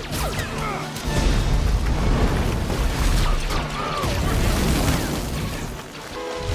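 Battle-scene film soundtrack: music mixed with booming explosions and blaster fire, dipping briefly near the end.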